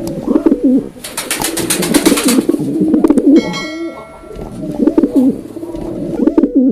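Pigeon cooing in repeated low, wavering calls. About a second in there is a rapid run of sharp ticks, roughly eight a second, lasting a second and a half. A brief thin high-pitched ringing sound follows near the middle.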